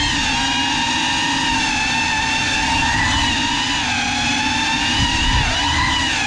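Cinewhoop FPV drone's brushless motors and ducted propellers whining, the pitch rising and falling with throttle as it flies, heard from the GoPro on board. A couple of brief low bumps about five seconds in.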